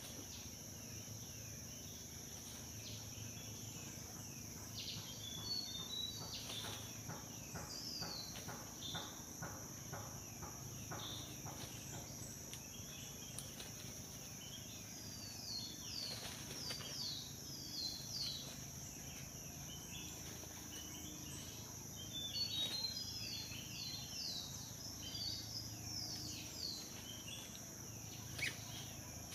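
Forest ambience: a steady high-pitched insect drone under repeated clusters of short, falling bird chirps. Light rustling and crackling in the leaf litter and twigs as the snare is worked by hand.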